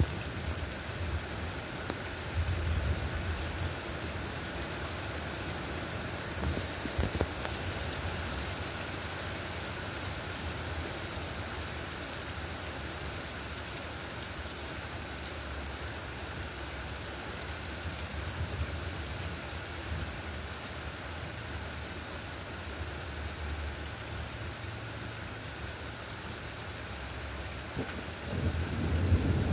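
Steady heavy rain falling on a wet street, with low rumbles of thunder now and then and a louder thunder rumble building near the end.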